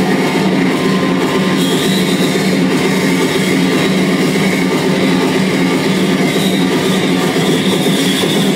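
Live harsh noise / power electronics played on electronic gear: a loud, unbroken wall of distorted sound over a low drone, with a thin high whine that wavers in and out above it.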